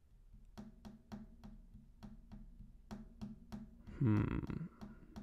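Quiet background music with a ticking percussion beat, about three ticks a second over a low held tone. A brief, louder pitched sound comes in about four seconds in.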